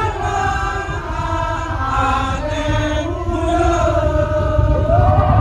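Madurese ul daul (tong-tong) music played loud: a long, wavering, chant-like melody line that slides between held notes, over a heavy low drum and bass rumble.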